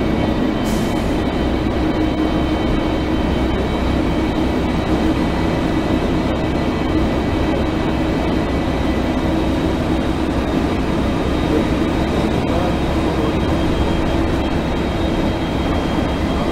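2004 Gillig Phantom transit bus's Cummins ISL straight-six diesel idling steadily while the bus stands parked, with a thin steady whine on top of the rumble.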